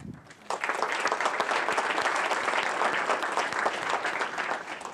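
Audience applauding, a dense patter of many hands clapping that starts about half a second in and fades out near the end.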